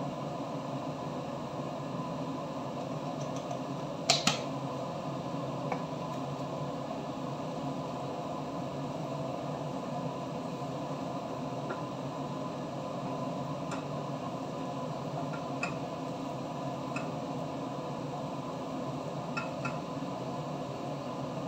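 Steady fan-like hum of kitchen ventilation, with occasional light knocks and scrapes of a wooden spatula against a frying pan as food is stirred. The loudest knock comes about four seconds in.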